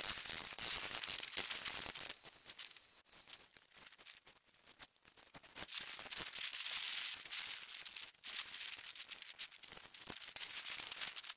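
Faint crackling and rustling noise made of many small, irregular clicks over a light hiss, quieter for a couple of seconds in the middle.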